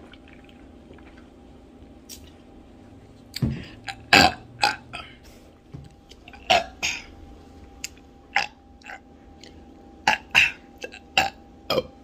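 A woman burping over and over after gulping carbonated soda: more than a dozen short, loud burps in quick succession, starting about three seconds in.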